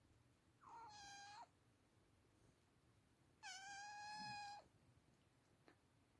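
Oriental Shorthair kitten meowing twice, high-pitched: a short meow about half a second in, then a longer, louder meow about three and a half seconds in.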